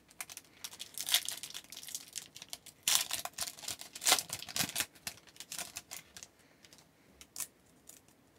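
A hockey card pack wrapper being torn open and crinkled, with the cards rustling as they are handled. The crackling is thickest about three to four and a half seconds in and thins to a few small clicks near the end.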